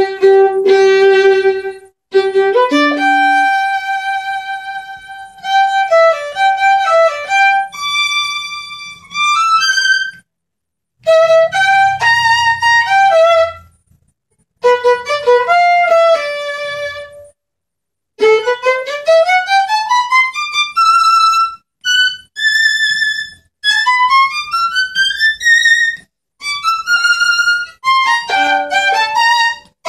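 Solo violin played with the bow, a single melodic line with some long held notes, broken by short silences between phrases. In the second half it plays several fast rising runs up the instrument.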